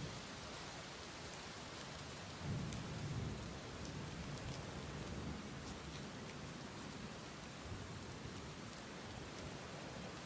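Steady rain, with scattered sharp ticks of single drops and a low rumble of thunder about two and a half seconds in.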